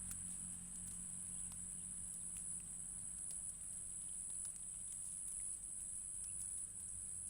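Insects droning steadily at a high pitch, with scattered light clicks and a low hum underneath.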